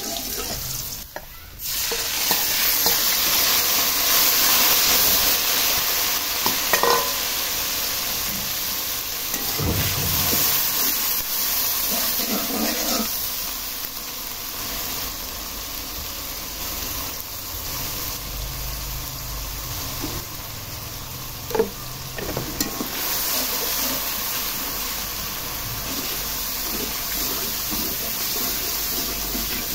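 Sliced onions and then a spice paste frying in hot oil in an aluminium karahi: a steady sizzle, with a spatula stirring and scraping against the pan now and then.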